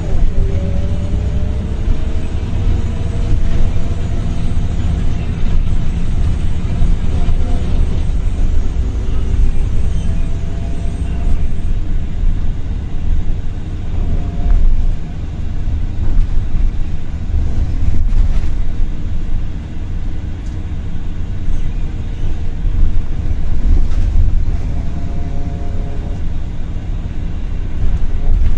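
Interior of a Volvo B7RLE single-deck bus on the move: a steady low diesel rumble with the ZF automatic gearbox whining over it. The whine climbs in pitch in the first few seconds as the bus pulls away, and comes back around ten seconds in and near the end.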